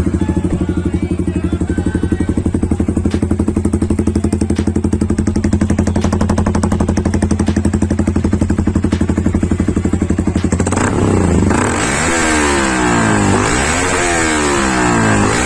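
Yamaha R15 V3's single-cylinder engine through an SC Project S1 aftermarket exhaust, idling with an even, rapid pulsing beat. After about ten seconds the throttle is blipped several times, the pitch rising and falling with each rev.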